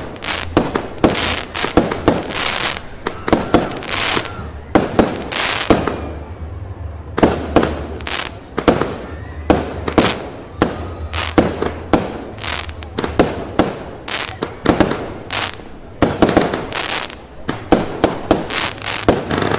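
A rapid, irregular string of loud firecracker bangs, several a second, with a brief lull about six seconds in.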